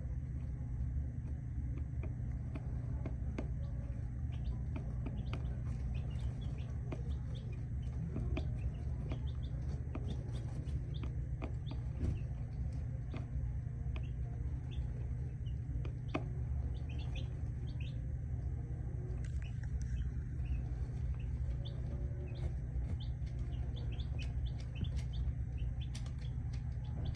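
Chickens and chicks calling, mostly many short high peeps scattered throughout, over a steady low rumble.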